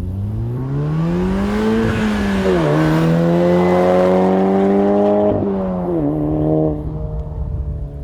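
Volkswagen Golf R's turbocharged four-cylinder engine through an AWE SwitchPath exhaust, accelerating hard: the pitch climbs, drops sharply at two upshifts about two and a half and five and a half seconds in, then falls away as the throttle is lifted near the end.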